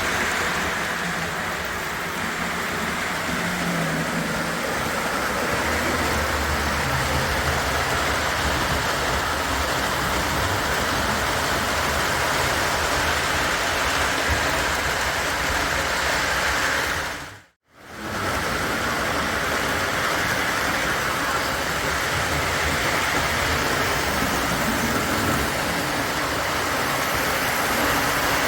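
O gauge model train running on three-rail track: a steady rumble of wheels on rail and motor hum. The sound cuts out briefly about two-thirds of the way through, then resumes.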